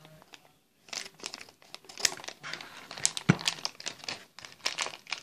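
Foil Lego minifigure blind bag crinkling and rustling as it is handled and snipped open with scissors, with one sharp click about three seconds in.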